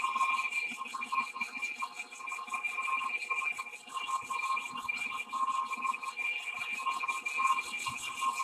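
Big Monarch engine lathe running under load, its CNMG carbide insert taking a skim cut on a large trommel trunnion wheel. A steady high whine over a pulsing, warbling tone and hiss.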